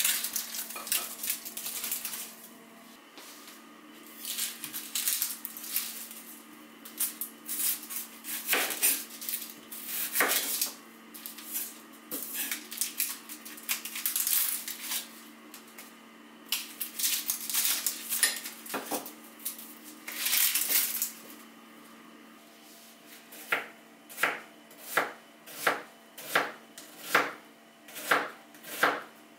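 Dry, papery onion skin rustling and crackling as an onion is handled and peeled with a knife. In the last few seconds, a knife starts slicing the white onion on a wooden cutting board in steady strokes, nearly two a second.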